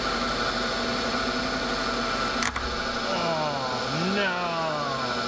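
Bridgeport milling machine running with an end mill cutting a slot, a steady machine hum; about two and a half seconds in, a sharp crack as the end mill snaps off, chips having bound up in the cut. After the crack, a whine drops in pitch, rises briefly, and drops again.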